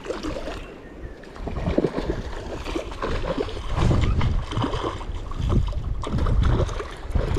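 Wind gusting on the microphone, heard as an uneven low rumble that builds from about a second and a half in, over the steady rush of river water.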